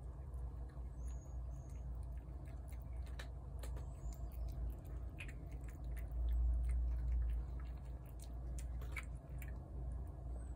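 A cat chewing wet food from a plate: a run of small, irregular wet chewing clicks. A steady low rumble lies underneath and swells about six seconds in.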